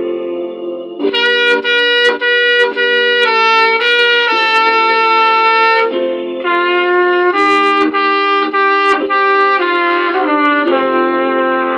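Trumpet playing a hymn melody, a string of short notes changing about every half second, over lower chords held underneath.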